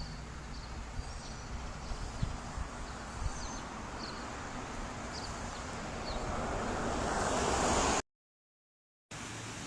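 Outdoor ambience: a steady rushing noise with a few faint, short high chirps. The noise swells toward a peak about eight seconds in, then cuts to silence for about a second.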